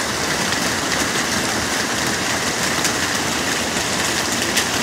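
Torrential downpour of heavy rain falling steadily as a dense, even hiss, with a few sharper drop hits close by.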